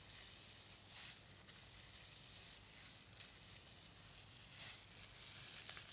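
Faint rustling with scattered soft crackles from a hand working through wet, freshly dyed hair.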